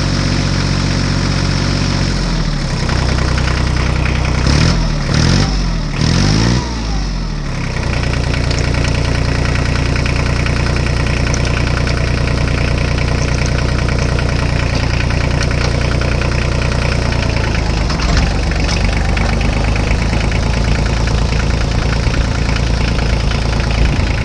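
Small engine running steadily, revved up and down a few times about five seconds in, then settling back into an even run.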